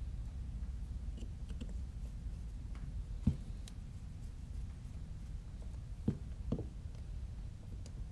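Small clicks and knocks of a drone motor, its screws and a hex screwdriver being handled against a carbon-fibre frame while the motor is screwed down, over a steady low hum. The sharpest knock comes about three seconds in, with two more a little after six seconds.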